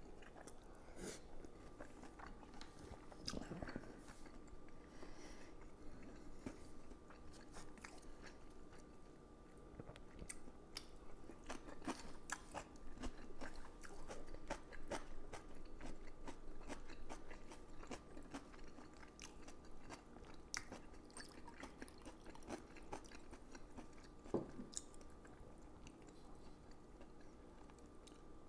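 A person chewing and eating at close range, with many small clicks and taps of utensils against a dish; faint, over a steady low electrical hum.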